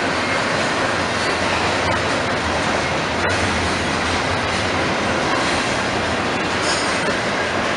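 Double-stack intermodal freight train passing close by, its steel wheels on the rails making a loud, steady rumble.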